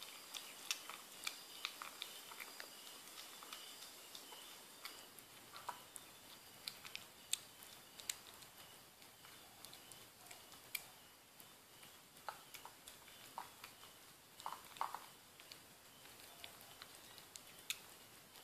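A kitten eating wet cat food from a ceramic bowl: faint, irregular smacking and clicking of chewing and licking.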